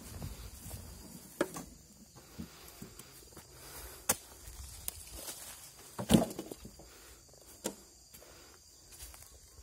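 Footsteps through grass and leaf litter, a few separate steps or knocks, the loudest about six seconds in, over a faint, steady, high insect buzz.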